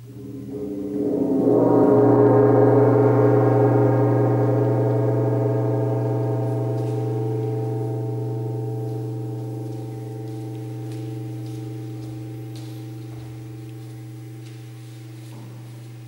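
Large hanging gong played with a soft mallet: it swells up over about two seconds, then rings on with many overtones, slowly fading.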